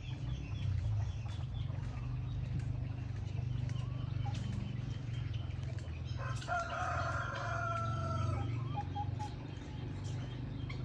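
A rooster crowing once, one long call of about two seconds beginning about six seconds in, over a steady low rumble.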